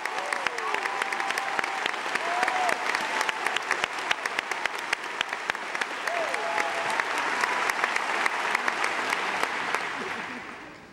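Theatre audience applauding a ballet solo, the clapping fading away near the end.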